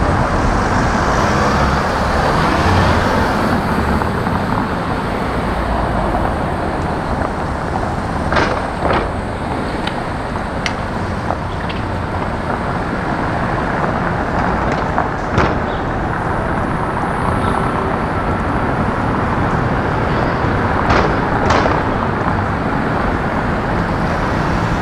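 City street traffic: a steady rumble and hiss of passing vehicles, broken by a handful of short sharp clicks or knocks.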